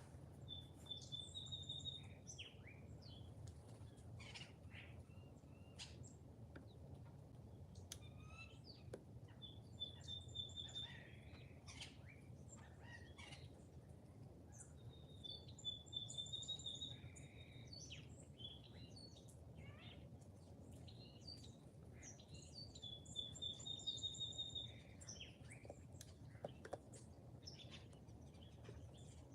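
Faint songbirds: one bird repeats a short, fast trill on a single high pitch about every six to seven seconds, among scattered chirps and calls, over a low steady rumble.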